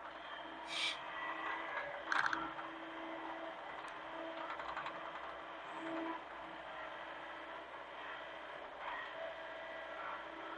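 Hitachi mini excavator running steadily, with a couple of sharp metal knocks about one and two seconds in.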